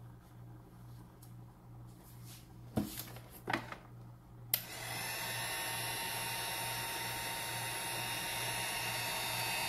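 A heat gun switched on about four and a half seconds in and running steadily, blowing hot air on epoxy resin part A to melt out the chunks in it. Before it, a couple of light clicks over a faint hum.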